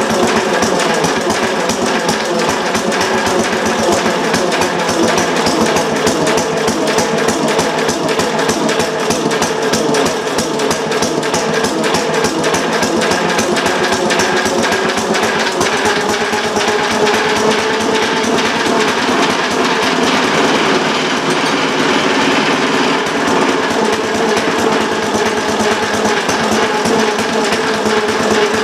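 Antique 1923 Briggs & Stratton model PB single-cylinder engine running steadily on its own with a rapid firing beat, picking up speed slightly around the middle. It runs rough, not yet smoothed out after being brought back to life.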